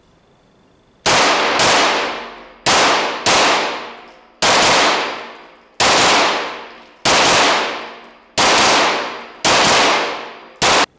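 Chiappa CBR-9 Black Rhino 9 mm Luger semi-automatic carbine fired about ten times in an indoor range, mostly about a second apart with two quick doubles near the start. Each loud shot echoes off the room and fades over about a second.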